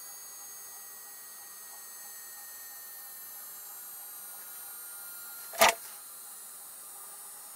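Boeing 737 vertical gyroscope rotor coasting down after power-off: a thin, high multi-tone whine slowly falling in pitch over a faint hiss. A single sharp click about five and a half seconds in.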